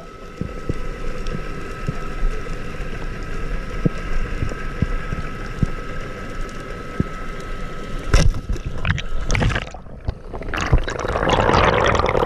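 Water sound heard through a diving camera: a steady faint hum with scattered small clicks, a short clatter about eight seconds in, then a loud rush of water and bubbles near the end.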